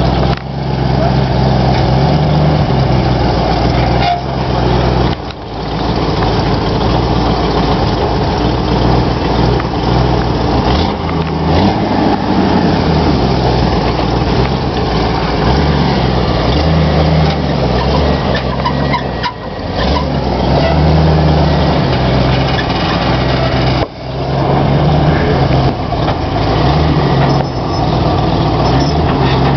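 Lifted Ford Bronco's engine working at low speed while rock-crawling, its pitch rising and falling with the throttle. It breaks off briefly a few times.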